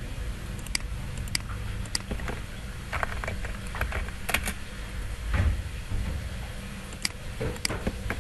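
Computer keyboard keystrokes and mouse clicks, a few irregular clicks at a time, over a low steady hum.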